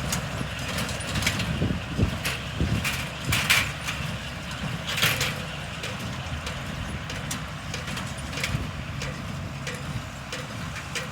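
Tractor engine running steadily, with scattered knocks and rattles and a few short hissy bursts, strongest about two to five seconds in.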